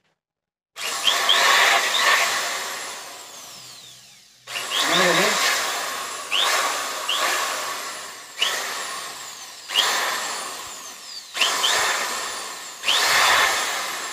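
Buildskill corded electric drill run free in the air in short trigger pulls, about eight times after a brief silence. Each pull starts sharply, and the motor's whine falls away as the chuck coasts down.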